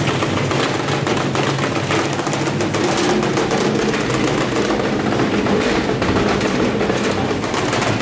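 Gorenje WNHEI washing machine spinning a load of soaking wet clothes badly out of balance, with rapid, continuous knocking and rattling as the drum bangs about inside the cabinet: the machine is shaking itself apart.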